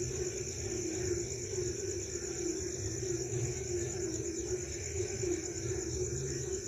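Night chorus of frogs and crickets: a steady, fast-pulsing high insect trill over a continuous lower frog chorus, with a low rumble underneath.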